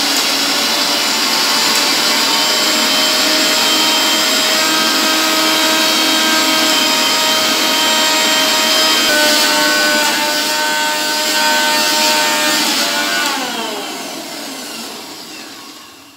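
Electric mixer grinder running with its steel jar grinding mahua, cashews, almonds and sesame with ghee. About 13 seconds in it is switched off and the motor's whine falls in pitch as it spins down and fades.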